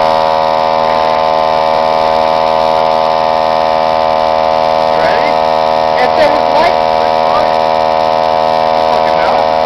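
Loud, steady electrical hum with many overtones, unchanging throughout.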